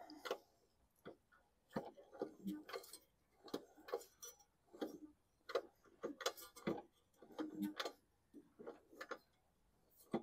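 Irregular light clicks and knocks, one or two a second, as the Toro Recycler mower's blade is rocked back and forth by hand, turning the engine over; the engine has connecting rod play and is judged shot.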